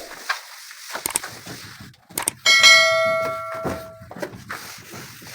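A metal object struck once about two and a half seconds in, ringing with a clear metallic tone that fades over about a second and a half, among scattered light knocks and scrapes.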